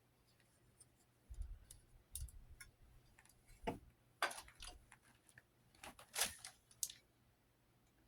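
Hampton Bay Gazebo II Plus ceiling fan running on medium: a faint steady hum with scattered, irregular clicks and ticks, a few of them with a dull low thud.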